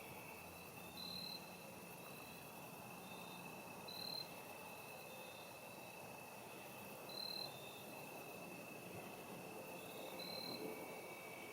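Crickets singing faintly: one steady high trill, with short higher chirps every second or two from other insects.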